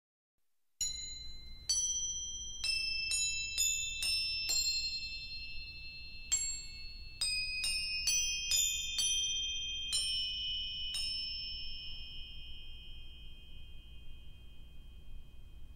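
Crotales struck one note at a time, playing a slow melody of about fifteen bright, high, bell-like notes that ring on and overlap. The last note is struck about two-thirds of the way through and rings, fading, to the end.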